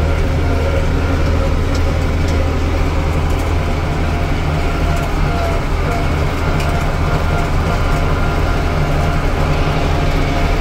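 Farm tractor engine running at a steady speed, heard from the operator's seat as a loud, even, low drone.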